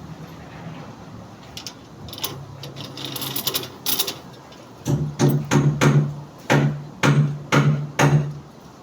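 Hammer blows on a construction job, about eight sharp strikes at roughly two a second from about five seconds in, each with a short low ring. Lighter knocks and clatter come before them.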